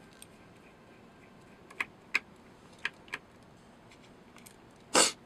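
A few light, sharp metallic clicks as a small screwdriver works a tiny screw on the metal side plate of a Kalibrgun Cricket air rifle's magazine housing, followed by one louder, short noise near the end.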